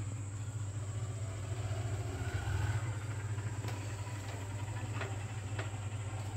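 Steady low electrical hum with a thin, faint high whine above it, from a switched-on 12-volt four-channel MOSFET amplifier.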